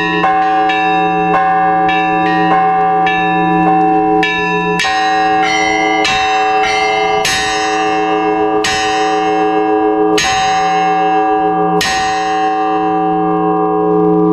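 Russian Orthodox church bells rung by a bell ringer: a quick pattern on the smaller bells, two or three strokes a second, for the first few seconds. Then slower, heavier strokes a second or more apart over the long ringing hum of a large bell.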